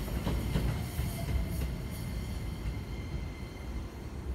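Keikyu 1000-series electric train moving away, its low rumble fading, with a few wheel clicks over rail joints in the first two seconds.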